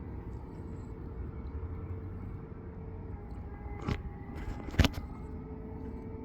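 Steady low hum of running air-conditioning equipment with faint steady tones, broken by two sharp knocks about four and five seconds in, the second louder.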